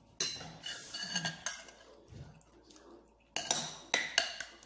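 Metal utensils clinking and scraping against ceramic dishes: a fork on a plate and serving tongs against a bowl while salad is served. The clinks come in two bunches, one just after the start and another about three and a half seconds in.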